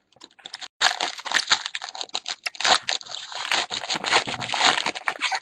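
Crinkling and tearing of a trading-card pack's wrapper, a dense crackle with many sharp clicks lasting several seconds, as a 2012 Panini Elite football pack is torn open.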